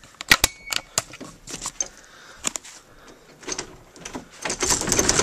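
Clicks and knocks of a door knob and its lock being handled and locked, with a short metallic ring among the first clicks. Louder rustling handling noise comes in near the end.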